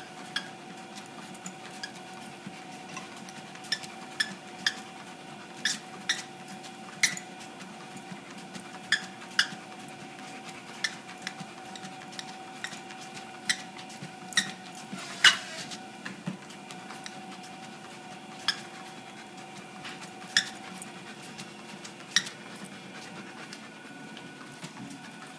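Electric treadmill running with a steady motor whine, and irregular sharp clicks, about one a second, of a large dog's claws on the moving belt.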